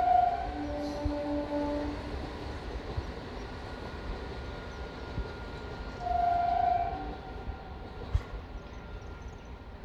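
MEMU electric commuter train's horn sounding two blasts over the steady rumble of the train running: a lower note about half a second in, lasting about a second and a half, then a louder, higher note around six seconds in, lasting under a second.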